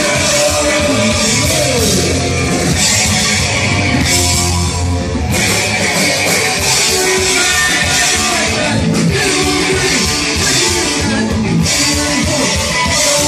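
Punk rock band playing live, with electric guitars and drums going at full volume throughout.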